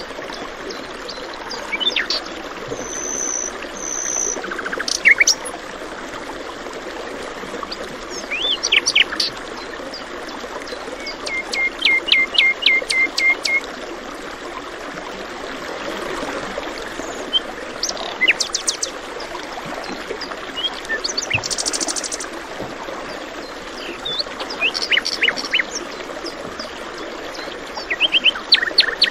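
Several birds singing and chirping in short calls and trills over steady running water, with a quick run of repeated notes about halfway through.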